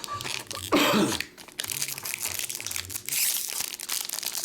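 Foil wrappers of baseball card packs crinkling and tearing as packs are opened and cards handled. A brief vocal sound with falling pitch comes about a second in.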